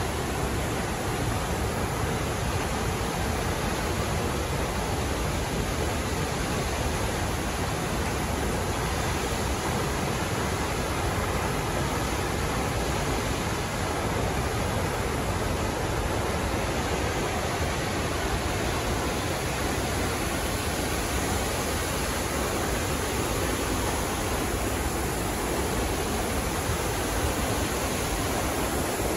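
Athirappilly Falls, a large waterfall pouring over a rock face: a steady, unbroken rush of falling water.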